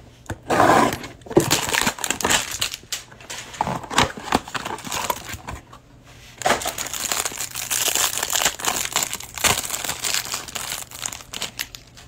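Plastic wrapping of a trading-card hanger box crinkling and tearing as it is opened by hand, in two long stretches of crinkling with a short lull between them.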